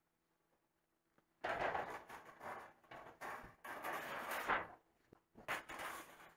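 Sheet metal sliding and scraping over a steel work surface, in two stretches: a long one starting about a second and a half in, then a shorter one near the end.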